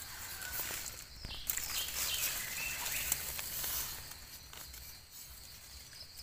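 Steel knife blade scraping and digging in forest soil and dry leaf litter to cut out a mushroom: gritty rustling with many small clicks, busiest in the middle and easing off near the end.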